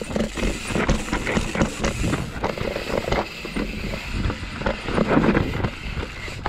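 Mountain bike rolling fast down a rocky dirt trail: tyres rumbling over rock and dirt, and the bike rattling and knocking over the bumps.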